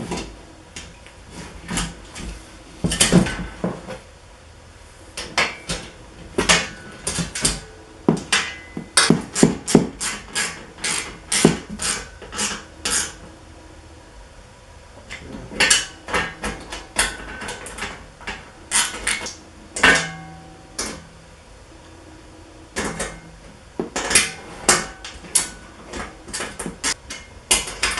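Metal hardware and parts clinking and knocking as they are handled: bolts, washers and nuts for the booth's legs, in irregular flurries of sharp clicks with two short pauses.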